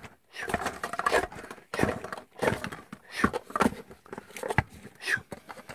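Thin paper cups being nested and stacked quickly by hand: a run of short rustling, scraping clatters, about six in a few seconds.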